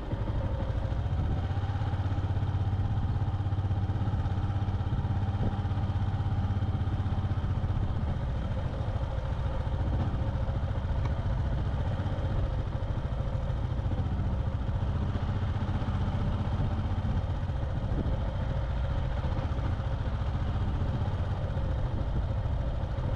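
Motorbike engine running at a steady cruise while riding, under a low rumble of wind and road noise.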